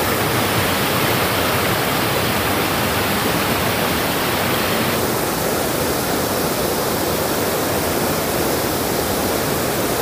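Waterfall: a steady, loud rush of falling water, with a slight change in tone about halfway through.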